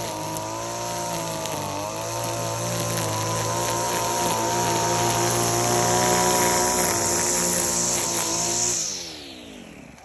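String trimmer motor running at high speed with a steady high hiss, its pitch wavering slightly as it cuts grass. Near the end it winds down, the pitch falling and the sound fading.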